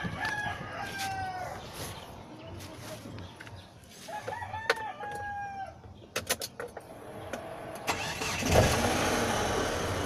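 A rooster crows twice. After a few clicks, the Mitsubishi Galant's 2.0-litre engine starts about eight and a half seconds in and keeps running.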